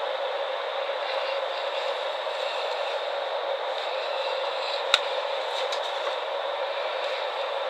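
Steady, even background hiss, with one sharp click about five seconds in.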